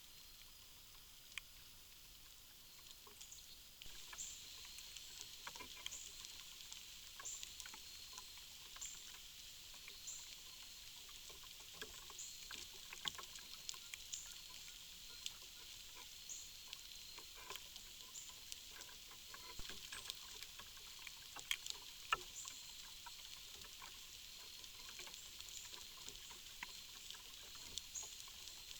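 Faint outdoor ambience: scattered soft clicks and rustles, and from about four seconds in a faint, high chirp repeating about every second and a half.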